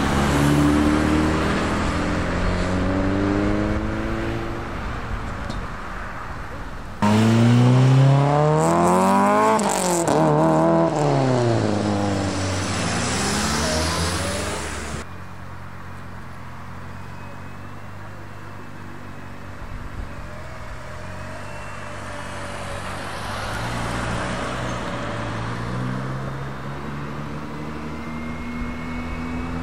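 Tuned cars' engines and exhausts accelerating away in several short cuts. A car pulls off with its pitch rising. About seven seconds in, a much louder car revs hard and passes close, its pitch sweeping up and then down. About halfway through it cuts abruptly to a quieter engine running steadily, with another car starting to accelerate near the end.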